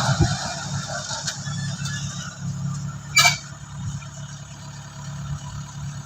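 Kubota DC-70 combine harvester's diesel engine running steadily, its level dropping a little at the start, with one brief sharp click about three seconds in.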